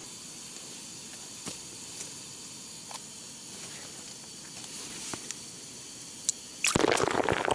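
Faint steady hiss with a few soft ticks; near the end, about a second of loud rustling noise.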